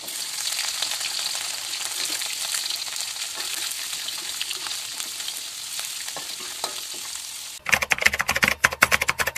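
Salted fish frying in hot oil in a wok, a steady sizzle with scattered crackles as it is stirred with a ladle. Near the end the sizzle cuts off abruptly and a fast run of typing-like clicks over music takes over.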